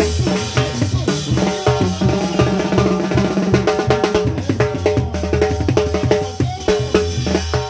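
Live cumbia band playing: drum kit and chrome timbales drive a fast, steady beat over a low bass line, with cymbal and rim hits throughout.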